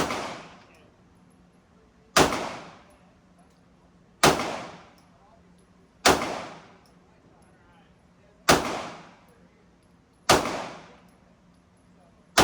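Single gunshots fired at a steady pace, about one every two seconds, seven in all, each with a short echo dying away.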